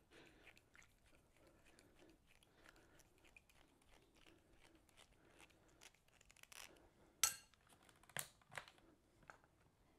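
Faint small clicks and scrapes of a screwdriver tightening a small hose clamp onto an air hose, with a few sharper clicks near the end.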